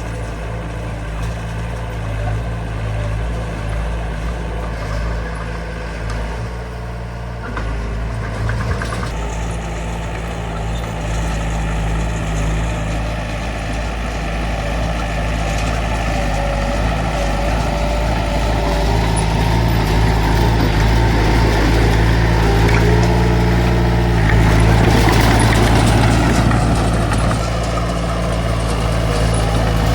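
Small bulldozer's diesel engine running steadily while working, growing louder through the middle and easing off near the end.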